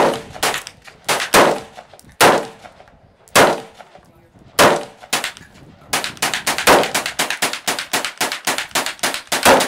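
Rifle shots from a 5.56 mm M4 carbine, sharp cracks with a ringing echo. First come spaced single shots about half a second to a second apart, then from about six seconds in a fast string of about five shots a second.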